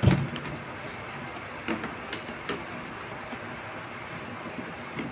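A thump as the motorcycle helmet is handled, then a few sharp clicks of a screwdriver working the screw of the helmet's chin mount, over a steady background hiss.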